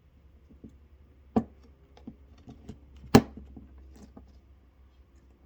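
Small hard parts and tools being handled on a workbench during cable soldering: scattered light clicks and two sharp knocks, the second the louder, over a steady low hum.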